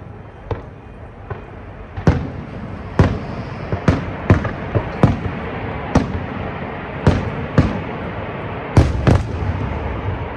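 Aerial fireworks shells bursting: a series of sharp bangs at irregular intervals, roughly one or two a second. A couple of faint pops come first, and the loud bangs start about two seconds in, over a continuous rushing noise.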